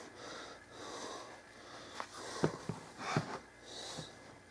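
A pocket knife scraping and slitting the seal sticker on a small cardboard box, with a few light taps as the box is handled.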